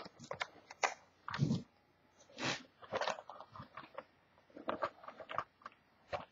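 Wrapping of a sealed trading-card box being opened: irregular crackles, clicks and short crinkling swishes of plastic and cardboard.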